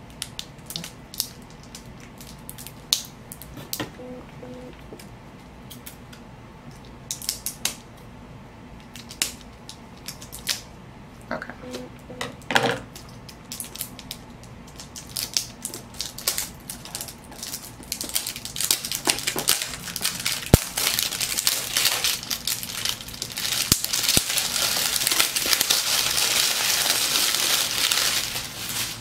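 Hands opening a stethoscope's cardboard box: scattered light taps, clicks and scrapes of the box, then, about two-thirds of the way through, a long stretch of continuous crinkling and rustling of the packaging inside.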